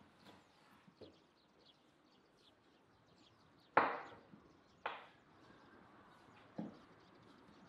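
A large kitchen knife cutting raw meat into chunks on a wooden board: four sharp chops at irregular intervals, the loudest about four seconds in.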